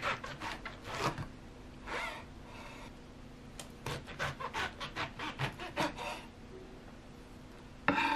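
Kitchen knife cutting through the stems and root base of a cluster of shimeji mushrooms onto a wooden cutting board, in a run of short cuts with pauses between. A louder knock comes near the end.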